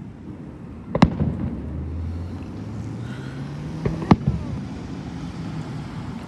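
Fireworks going off: one sharp bang about a second in, then two more in quick succession about four seconds in, each followed by a rumbling echo.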